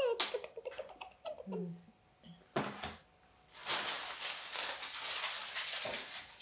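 A toddler licking and smacking at an ice cream cone: wet mouth noises, with a brief low hum partway through and a longer run of rapid licking sounds in the second half.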